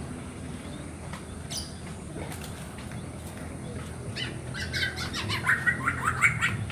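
Young black-naped oriole calling. A few scattered short notes come first, then from a little past halfway a rapid run of short, harsh calls that grows loudest near the end, over a steady low hum.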